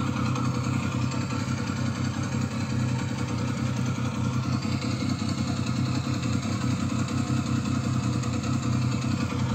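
Triumph Speed Triple T509's three-cylinder engine idling with a steady rattle, which is put down with near certainty to a worn cam chain tensioner.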